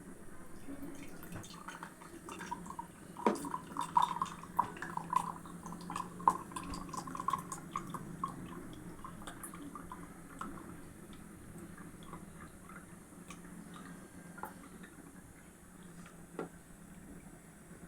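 Water dripping and trickling from a straw into a tumbler, pushed out of a bottle by air from a balloon fitted over its neck: a quick run of ringing drips for several seconds, thinning to occasional drops.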